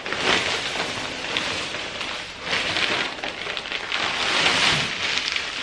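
Crushed oyster shell pouring from a bag into a plastic tote: a steady hiss of grains falling, heavier in the second half.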